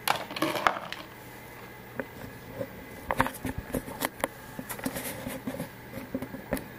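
Small steel ball bearings dropping and clattering on plastic spoon rests and into clear plastic boxes: a cluster of sharp clicks at the start, one near two seconds, then many irregular clicks from about three seconds in.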